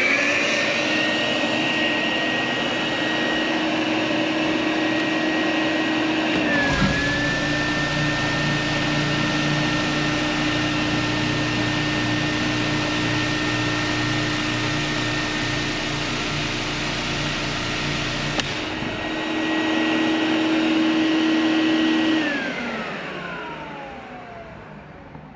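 Hyper Orbit floor sander's onboard vacuum starting with a rising whine. About seven seconds in, the sander's own motor starts, the vacuum dipping briefly, and both run steadily together. The sander motor stops at about eighteen seconds, and near the end the vacuum shuts off and winds down with a falling whine.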